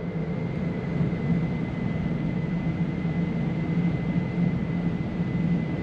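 Steady ventilation noise of an indoor shooting range: a low, even rumble with a faint high whistle held throughout.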